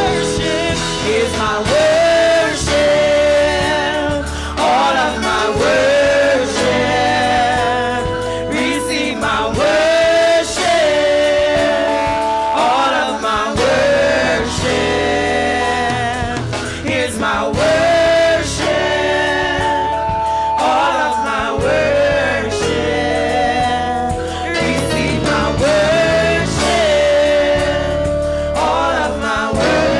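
Gospel praise-and-worship song: several women singing together into microphones over a live band with drums.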